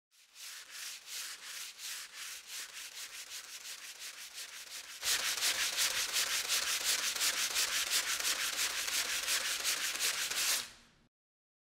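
Sandpaper rubbed by hand back and forth over the wood of a staircase, in quick even strokes about three a second. The strokes get louder about halfway through and stop abruptly near the end.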